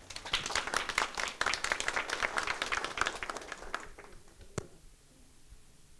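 A small audience applauding, dense clapping that dies away after about four seconds, followed by a single click.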